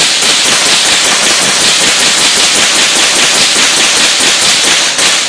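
A gun fired in rapid succession, a fast string of shots at about five or six a second that starts abruptly and stops suddenly near the end, loud enough to overload the recording.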